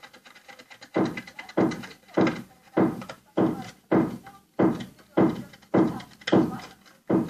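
Chalk rubbed in regular strokes over a plastic sour-cream tub as it is coloured in, about three strokes every two seconds, each starting sharply and trailing off in a short scrape.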